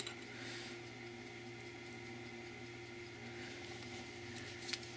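A few faint clicks and ticks of small metal parts being handled by hand, over a steady low hum.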